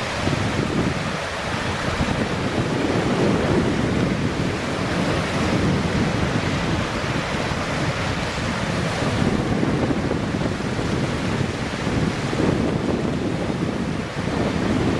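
Wind blowing across the microphone: a steady rushing noise with irregular low buffeting.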